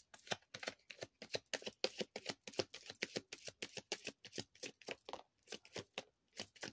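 A tarot deck shuffled by hand: a steady run of quick card clicks, about six a second.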